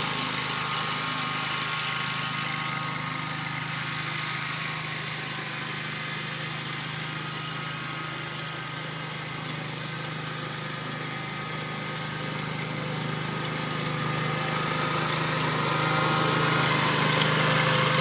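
Lawn mower engine running steadily. It grows fainter toward the middle and louder again near the end.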